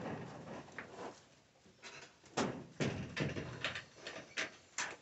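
A quick run of sharp knocks and rattles, about eight of them from about two seconds in, with a softer knock at the start, like something being handled and bumped.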